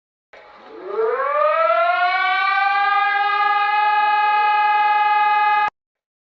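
Warning siren winding up: its pitch rises over about a second, then holds a steady tone before cutting off suddenly near the end.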